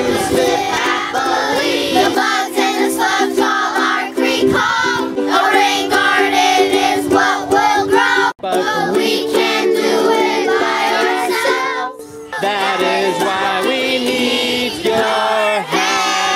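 A group of children singing a song together over instrumental accompaniment.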